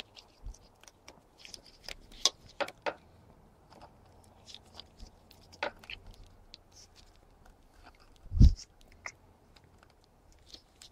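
Scattered small clicks and taps of pliers working a squeeze-type spring hose clamp onto the fuel hose at an outboard's fuel filter, with one dull thump late on.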